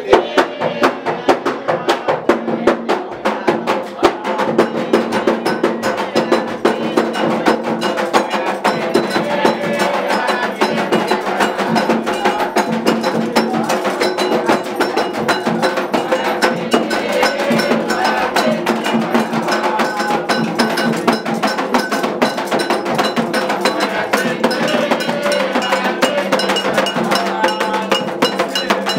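Candomblé ritual music led by a handheld metal bell (adjá) shaken rapidly and without a break, its ringing strokes dense and continuous, with voices singing along.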